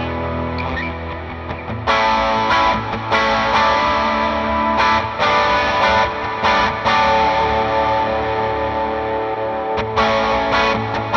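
Electric guitar played through a Fractal FM3 amp modeller with a York Audio Matchless 2x12 cabinet impulse response. A chord rings and fades, then about two seconds in strummed chords begin, with several more struck through the middle, chords left ringing, and more strums near the end.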